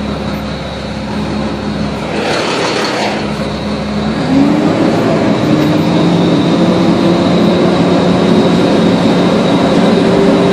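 A motor vehicle's engine running steadily. About four seconds in it grows louder and its pitch rises a little, as the vehicle speeds up.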